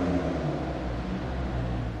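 A sports car's engine running at low revs in a tunnel, a deep rumble that slowly fades, with the tunnel's echo around it.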